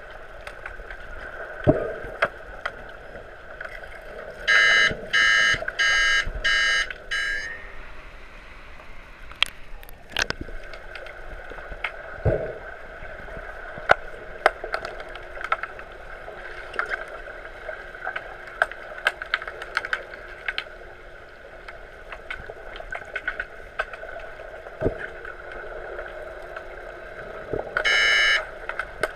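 Underwater hockey referees' underwater buzzer sounding five short beeps in quick succession around five seconds in, and one longer beep near the end. Between them, the hiss of water and bubbles heard through the water, with scattered sharp clicks and knocks.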